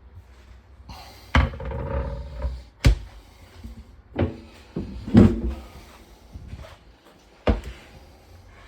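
Cabinet doors and fittings in an RV kitchen being opened and shut by hand: about five sharp knocks spread over the seconds, with rattling and scraping after a couple of them.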